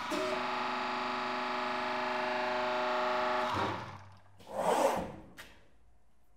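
A 40-ton hydraulic press's pump unit runs with a steady hum while the ram retracts upward, then stops about three and a half seconds in. A short hiss and a single click follow.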